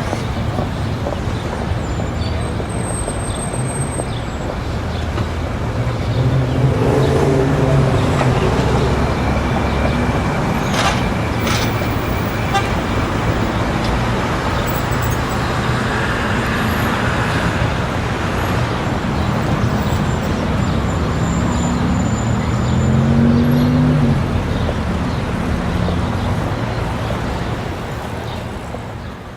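City street ambience dominated by steady road traffic, with vehicles passing and a horn sounding. Rising engine notes stand out twice. The sound fades out near the end.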